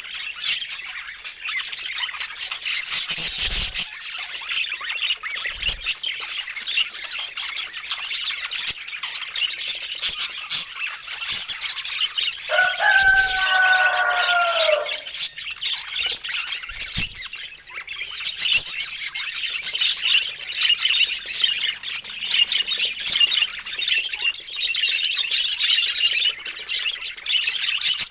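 Budgerigars chattering and warbling without a break, a dense run of high-pitched squeaks and chirps, with one lower, longer call about halfway through.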